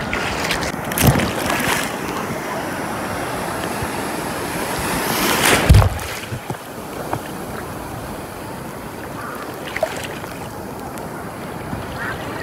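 Ocean surf breaking and washing around a microphone held at water level, with wind buffeting. A loud crash of a wave comes just before halfway, after which the sound settles to a softer, steady wash.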